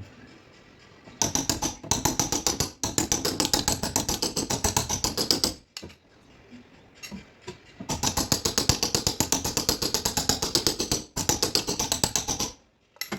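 Rapid tapping on a car's sheet-metal body panel during paintless dent repair, many light strikes a second in two long runs with a short pause between them.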